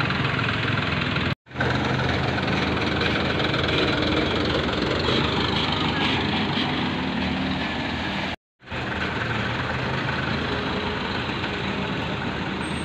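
Minibus engines idling, with a van pulling away near the end. The sound cuts out to silence for a moment twice.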